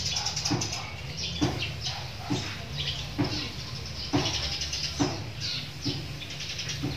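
Dogs barking repeatedly, short barks about once a second, over a steady low hum.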